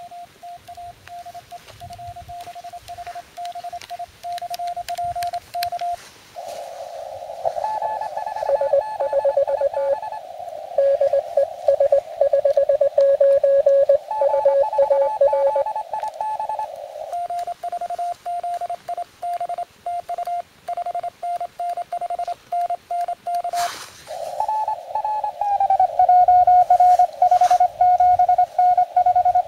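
Morse code (CW) tones from the Yaesu FT-817 transceiver's speaker. First one station's tone is keyed; then, from about six seconds in, several stations at slightly different pitches send at once, a pile-up of callers. A sharp click comes near the end, after which one tone slides lower in pitch as the receiver is tuned.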